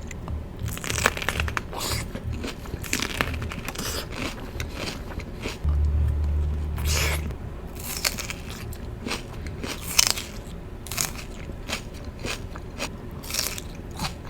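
Close-miked eating: crunchy bites and chewing, coming as irregular crisp crunches. A louder low rumble lasts about a second and a half, a little under halfway through.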